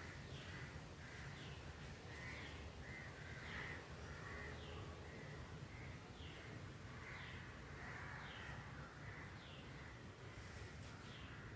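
Crows cawing faintly, with short falling calls repeating a little under a second apart over a low steady background hum.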